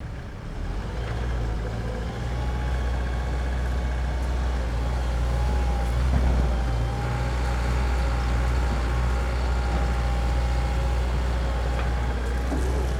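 Doosan DX140LCR-5 short-radius excavator running steadily, a deep engine hum with a steady higher whine above it.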